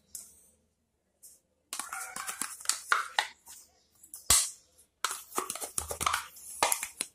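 A spoon scraping and clicking against a plastic yogurt pot, emptying the yogurt into a stainless steel bowl in two spells of quick scrapes, with one sharp knock about four seconds in.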